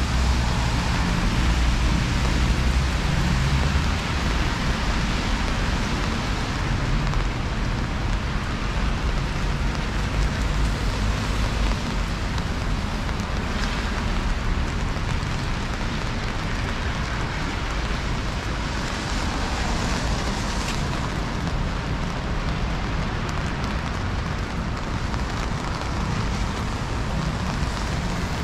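Steady hiss of rain falling on a city street, with the low rumble of road traffic, heaviest in the first few seconds.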